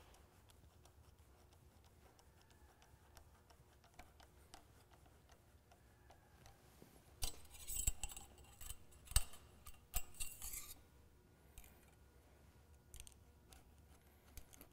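Small metallic clicks and short scrapes from hand tools working hose clamps on an engine's intake tubes, clustered between about seven and eleven seconds in, with faint ticks after. The rest is near silence.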